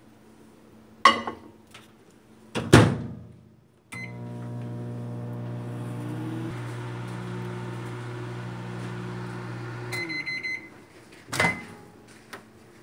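Microwave oven: a click and a clunk as the door is shut, then the oven running with a steady electrical hum for about six seconds. It stops with short beeps at the end of the cook, and the door clunks open near the end.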